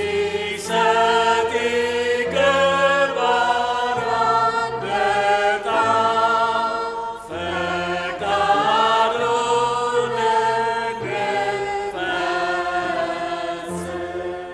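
Choir singing a slow liturgical chant in harmony, in long held chords that change every second or two. The last chord dies away near the end.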